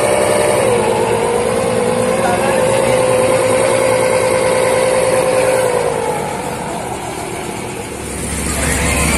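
RC boat's electric propeller motor, a 997-size motor on a 24 V li-ion battery, running its propeller in the air with a steady whine. The pitch dips briefly about half a second in, and the whine fades out around six seconds in. A different, noisier sound rises near the end.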